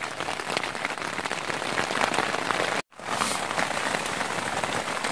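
Heavy rain falling on a tent, a dense, steady patter of drop hits. It breaks off completely for a split second a little past halfway.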